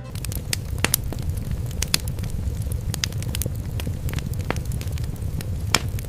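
A fire burning: a steady low roar with many sharp crackles and pops scattered through it.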